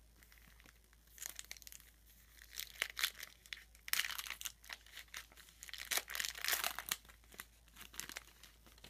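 Foil trading-card pack being torn open and crinkled by hand: irregular crackling tears from about a second in, loudest in the middle, dying away near the end.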